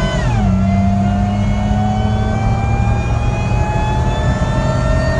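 Supercharged Honda J35 3.5-litre V6 pulling hard under boost, heard from inside the cabin. Just after the start, an automatic upshift drops the engine note sharply, then the pitch climbs steadily again as the SUV accelerates.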